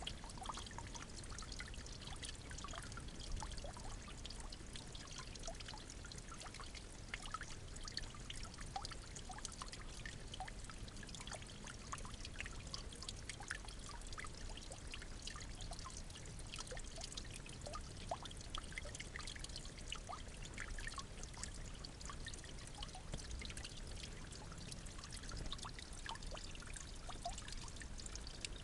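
Water trickling steadily, with many small irregular drips and splashes.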